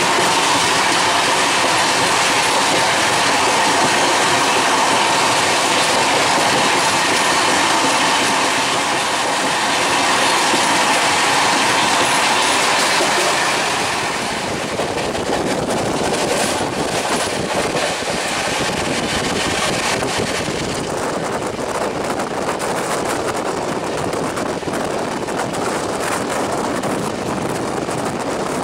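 Express passenger train running at high speed, about 135 km/h, heard from an open coach doorway: a loud, steady rush of wind and wheels on rail. About halfway through, the rush eases and gives way to a rapid clatter of wheels over rail joints and points.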